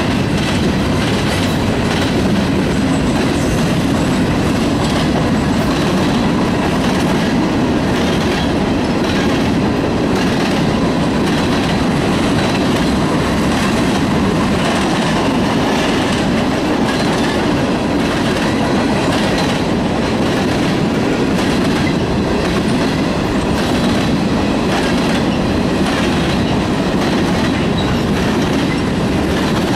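Freight train's hopper and coal cars rolling past at close range: a steady loud rumble with wheels clicking over the rail joints.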